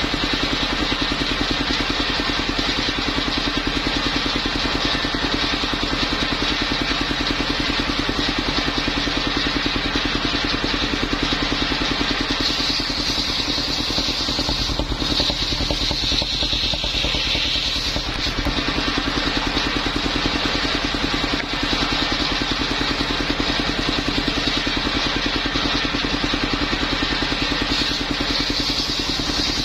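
Engine of a mobile circular sawmill running steadily with a fast, even pulse. For a few seconds about halfway through, a high whine grows stronger, then settles back.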